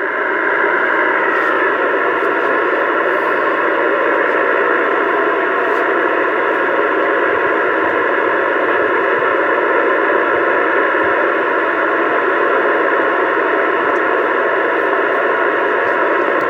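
Steady static hiss from a CB radio's speaker, even and unbroken, with no voice on the channel between radio checks.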